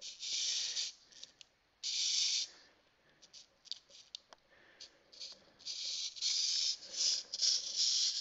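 Small toy robot's clockwork wind-up mechanism being wound by hand: repeated short bursts of high, rattling whirr with scattered small clicks in between.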